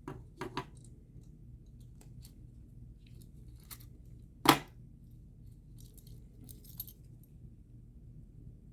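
Small parts of a 20 amp GFCI outlet clicking and clinking as it is taken apart by hand, with one sharp snap about four and a half seconds in. A faint low hum runs underneath.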